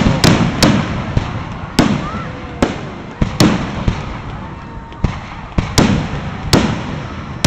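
Aerial firework shells bursting in quick succession: about a dozen sharp bangs at irregular intervals, each trailing off in echo.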